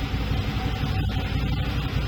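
Desertcross 1000-6 side-by-side running steadily, with a pulsing low engine rumble, a faint steady whine and an even hiss of the cab's HVAC blower.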